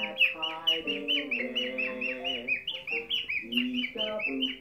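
Cockatiel chirping in a fast, even run of short, high, falling notes, several a second. Underneath runs a lower tune of held notes that step up and down.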